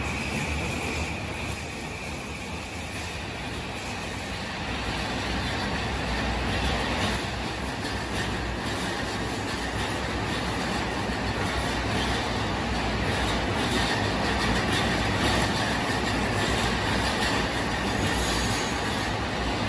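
Yokosuka–Sobu Rapid Line electric commuter train moving along an underground platform: a steady rumble of wheels on rails, with a few faint clicks over the rail joints.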